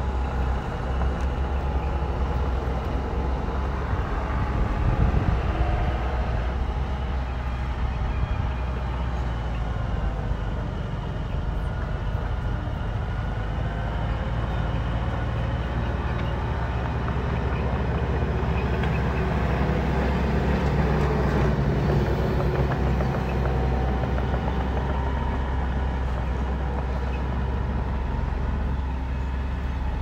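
Heavy diesel earthmoving machinery (mini bulldozer and dump trucks) running continuously: a steady low engine drone, with engine pitch rising and falling a few times.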